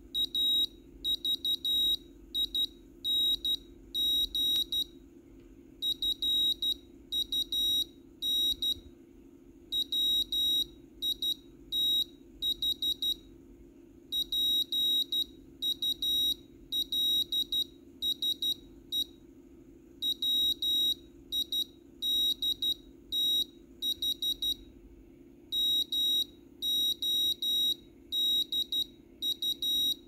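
Small buzzer driven by a Raspberry Pi Pico microcontroller, beeping out Morse code: a high-pitched tone keyed on and off in short and longer beeps, grouped, with pauses between the groups.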